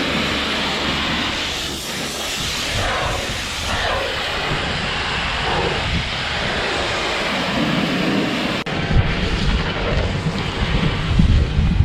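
A heavy engine running steadily under a loud rushing hiss. About two-thirds of the way through there is an abrupt cut, after which a lower engine rumble takes over.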